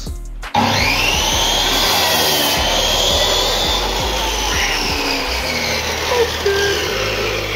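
A sliding compound mitre saw running and cutting wood. It starts suddenly about half a second in, and its motor whine slides up and down in pitch.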